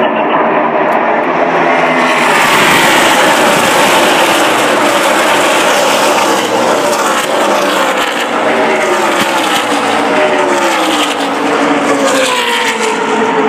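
A pack of NASCAR trucks racing past at full throttle, many V8 engines running at once. Their overlapping tones drop in pitch as they go by; the sound swells about two seconds in and thins near the end.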